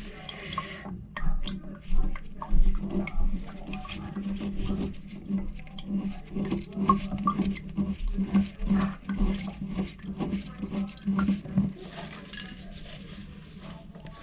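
Irregular small clicks, taps and rattles of plumbing parts being handled while a toilet's water supply line and its fittings are fitted, over a low steady hum.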